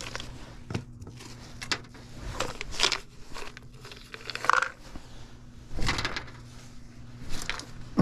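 Scattered clicks, knocks and rustles of hands and tools handling equipment, with a brief squeak about halfway, over a steady low electrical hum.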